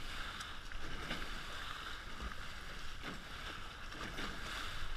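Water rushing and splashing along a Hobie 16 catamaran's hull as it sails through chop: a steady hiss with a few brief splashes.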